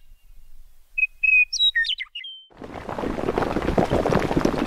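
A short phrase of bird chirps and trills, about a second in, on an otherwise silent background. From about two and a half seconds a dense crackling, rumbling noise of crumbling stone sets in and keeps going.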